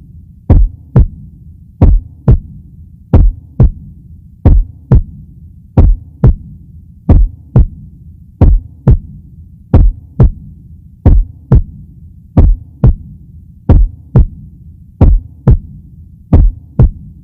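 A slow, steady heartbeat sound: paired thumps, lub-dub, about one pair every 1.3 seconds, over a low hum.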